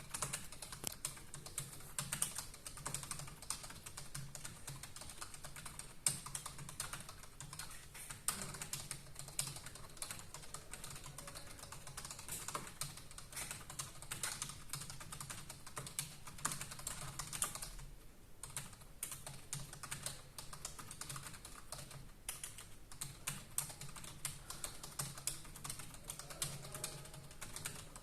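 Fast, continuous touch-typing on a computer keyboard during a timed typing test, a rapid stream of key clicks at about 94 words a minute. There is a brief pause about 18 seconds in.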